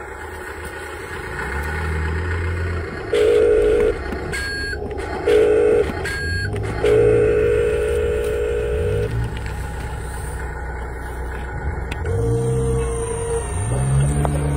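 Toy sound effects and motor of an RC dump truck. A low engine hum runs throughout. Short bursts of rapid electronic warning beeps come about three and five seconds in, a longer run about seven to nine seconds in, and another about twelve seconds in. From about six seconds on, a motor whine rises and falls in pitch as the dump bed starts to tip.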